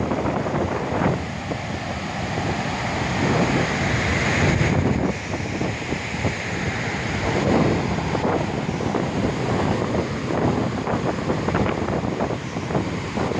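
Wind gusting and buffeting the microphone over a steady rush of water and spray pouring from the dam.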